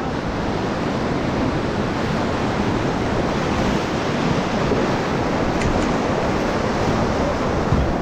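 Churning whitewater of a Ganges river rapid around the raft: a steady, even rush of water.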